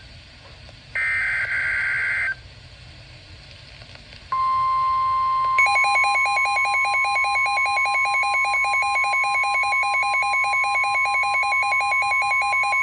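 Emergency Alert System broadcast: a short screeching SAME digital header burst, then the steady single-pitch 1050 Hz NOAA Weather Radio warning alarm tone. The alarm tone is joined about a second later by a rapidly pulsing beep. Together they signal the start of a severe thunderstorm warning.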